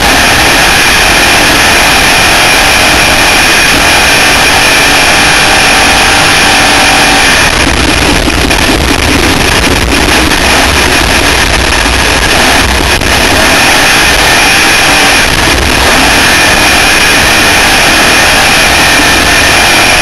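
Loud, steady wind noise on the onboard camera microphone of a Class 1 off-road race car driving fast across the desert, all but drowning out the engine.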